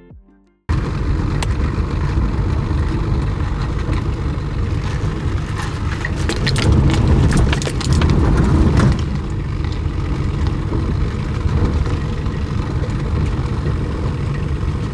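A 1995 Toyota Hilux driving on a rough road: a steady low rumble of engine and tyres, louder with a cluster of clicks and rattles about halfway through.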